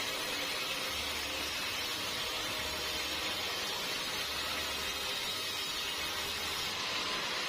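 Steady machine noise of a band sawmill running, a dense even hiss with a low hum that pulses on and off about every second and a half.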